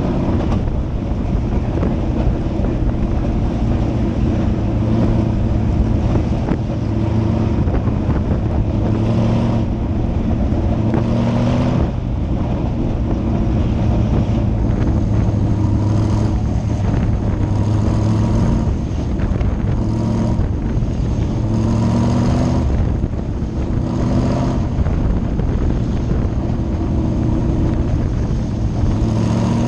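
Race car engine heard from on board, running loud and steady at racing speed. Its pitch rises and falls repeatedly, every couple of seconds in the second half.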